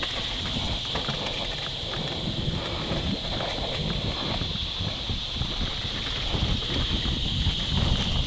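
Mountain bike rolling fast down a bumpy dirt singletrack: tyres rumbling on the dirt, the bike rattling and knocking over bumps, and wind buffeting the microphone, over a steady high buzz.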